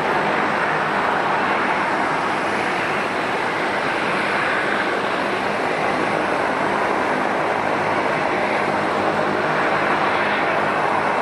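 Turboprop engines and propellers of a Bombardier Dash 8-300 (Pratt & Whitney Canada PW123) running steadily as the aircraft taxis along the runway: an even rushing hiss with a faint low drone underneath.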